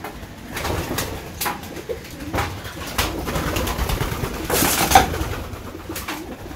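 Racing pigeons cooing in a loft, with sharp clicks and wing flaps as birds take off and land on the wooden perches, and a louder rush of wingbeats about four and a half seconds in.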